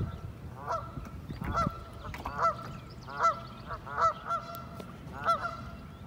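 A Canada goose honking over and over, about a dozen loud, nasal honks at uneven spacing.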